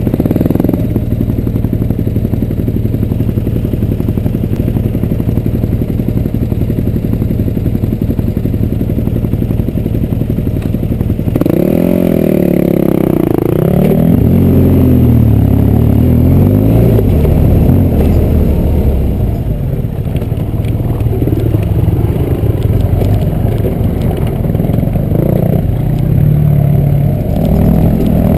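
Motorcycle engine running, heard from the riding bike: steady for the first ten seconds or so, then rising and falling in pitch again and again from about twelve seconds in as the throttle is opened and closed.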